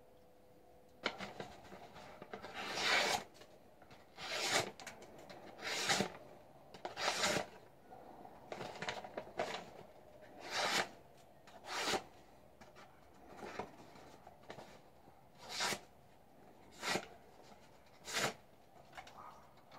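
Resolza knife blade slicing through a sheet of paper, about a dozen separate short rasping cuts one to two seconds apart, as a test of the blade's sharpness.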